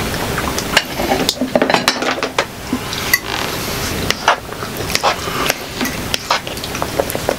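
Metal tongs and forks clinking and scraping against a pan and plates as spaghetti is served and eaten: irregular sharp clicks and clatters.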